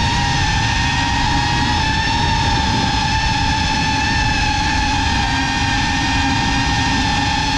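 GEPRC CineLog35 cinewhoop drone's brushless motors and ducted propellers whining steadily in flight, heard from the camera on board: one high tone with its overtones, wavering slightly in pitch, over a low rush of propeller wash and wind.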